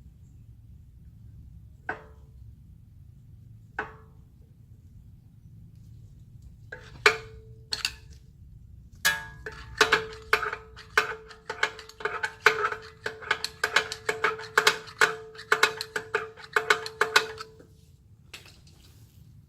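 Rear parking-brake shoe star-wheel adjuster being turned tighter with a tool: a few separate metallic clicks, then a quick run of clicks, about three or four a second, for around eight seconds, each with a short metallic ring.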